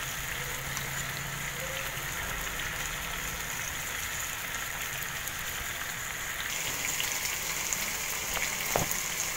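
Rice-stuffed mussels sizzling as they fry in coconut oil in a pan, a steady hiss that grows a little louder after about six seconds. A single light knock comes near the end.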